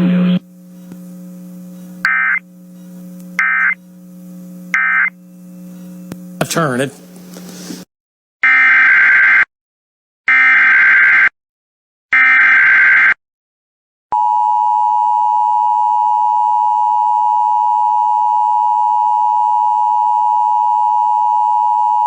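Emergency Alert System tones. There are three roughly one-second bursts of warbling SAME header data with pauses between them, then the steady two-tone attention signal held for about eight seconds, announcing a new tornado warning. Before them come a low hum, three short beeps and a brief spoken phrase.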